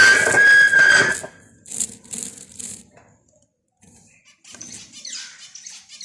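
A loud squeal with a steady high tone fills the first second. Then caged zebra finches give short buzzy chirps, a cluster of them after about two seconds and fainter ones again near the end.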